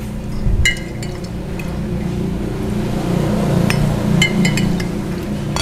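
Ceramic tableware clinking while ginger fish sauce is made in a bowl: one ringing clink under a second in and a quick cluster of three about four seconds in. A steady low hum runs underneath.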